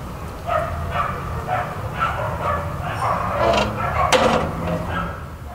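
Small dog barking in a run of short, high yaps about every half second, over a steady low outdoor rumble. There is a sharp click about four seconds in.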